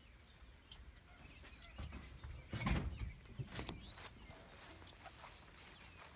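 Outdoor ambience with scattered bird calls and chirps, broken by a few short knocks and one louder rumbling thump about two and a half seconds in.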